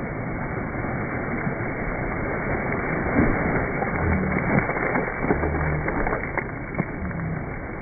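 Water splashing in a swimming pool as a person plunges in, over a steady rushing noise. The splashing is loudest and most crackly in the middle stretch.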